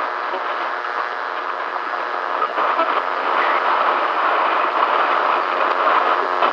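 Radio static from a weak, badly received broadcast signal: a steady hiss with crackle, the voice lost under the interference. It grows a little louder about two and a half seconds in.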